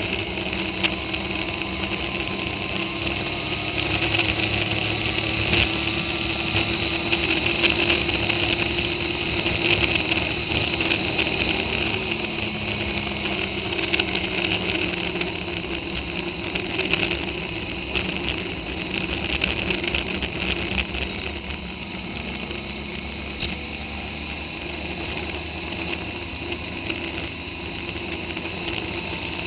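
Motorcycle engine running steadily under way, mixed with wind and road noise; its pitch drifts a little in the first few seconds.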